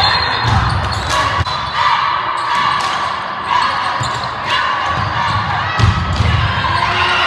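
Basketball thudding on a hardwood gym floor during live play, with repeated bounces over steady crowd chatter in a large, echoing gym.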